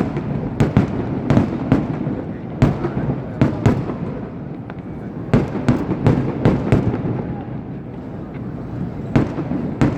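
Fireworks display: an irregular, rapid string of sharp firecracker bangs coming in clusters, with a sparser stretch a little past the middle before the bangs pick up again near the end.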